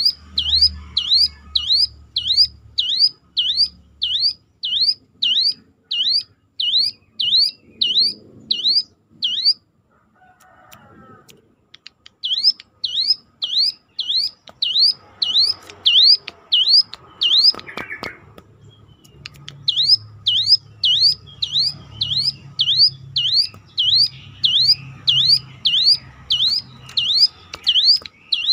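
Ciblek gunung (a mountain prinia) calling one siren-like note over and over, about two a second, each note dipping and then rising in pitch. The calling breaks off twice for a couple of seconds, and a low hum runs underneath.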